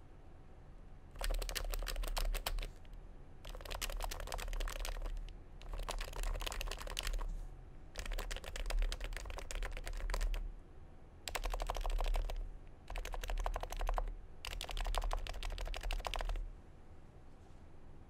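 Fast typing on a Norbatouch keyboard's lubed Topre electrocapacitive switches, fitted with Deskeys silencing rings and MT3 keycaps: seven quick bursts of rapid keystrokes with short pauses between them. The builder still hears a high-pitched noise on the upstroke and puts it down to either overlube or the 45 g domes.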